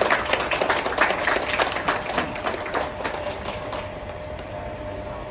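A small group applauding by hand, the claps dense at first and thinning out after about three seconds.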